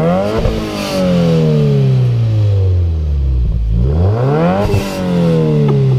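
2017 Subaru WRX's turbocharged 2.0-litre flat-four revved through a freshly fitted Tomei cat-back exhaust. It is blipped twice, each time rising sharply and then falling back slowly toward idle.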